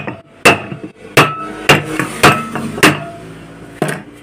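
A ball bearing being tapped down into the bearing seat of a ceiling fan's metal end cover: a run of sharp metallic taps about every half second, each with a brief ring, and a longer pause before the last one near the end.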